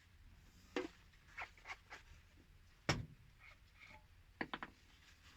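Scattered light clicks and scrapes of tap parts and tools being handled during a tap repair, with one sharper knock about three seconds in.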